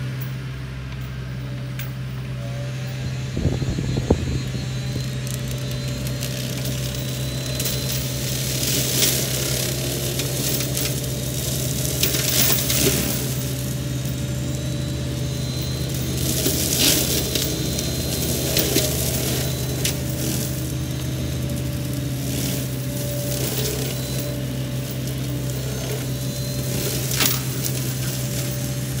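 Sany SY50U mini excavator running steadily with its Mongo flail mulcher head spinning, and several short bursts of crackling and crunching as the flails chew into brush and wood.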